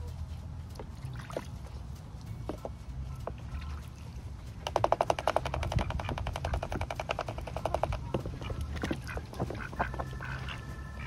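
Ducks: a fast rattling run of short, even pulses lasting about three seconds from a little before the middle, the loudest part, then a few short quacks near the end.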